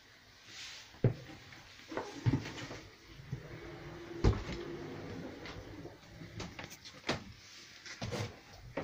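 Knocks and clunks of a wooden cabin door and fittings being handled in a small boat's interior, half a dozen separate knocks with the loudest about four seconds in, followed by a brief creak.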